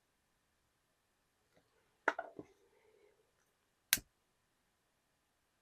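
A lighter clicked and handled: a pair of sharp clicks about two seconds in with a faint scuffle after, and a single sharp click near four seconds.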